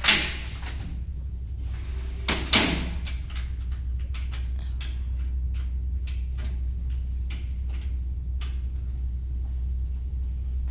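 Metal clanks and knocks as saw fittings are moved and set by hand. Two loud clanks with a short ring come at the start and about two and a half seconds in, followed by lighter clicks and taps, over a steady low hum.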